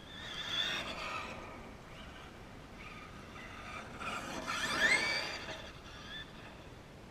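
Brushless electric motor of a Traxxas E-Revo RC monster truck, running a Mamba Monster conversion, whining as the truck accelerates in two bursts. The pitch rises sharply each time, and the second burst, about four to five seconds in, is the louder.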